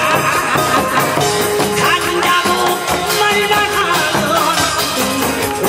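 A man singing a Korean trot-style song through a PA microphone over amplified backing music, with live hand drums keeping a steady beat, as in a pumba street performance.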